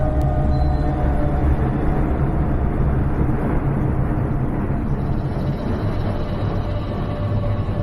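A steady, low rumbling drone with a few faint held tones above it: a dark ambient horror soundscape.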